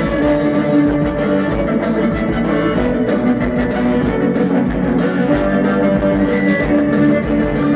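Amplified string trio of two violins and a cello playing a bowed melody through a PA, over a steady beat.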